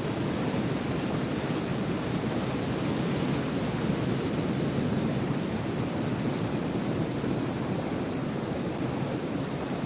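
Ocean surf as a continuous, steady rushing noise, evenly loud, with no separate wave crashes standing out.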